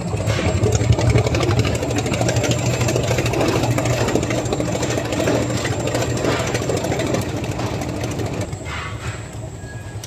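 Commercial planetary dough mixer running, its motor humming steadily as the beater churns stiff biscuit dough in the steel bowl. It gets a little quieter near the end.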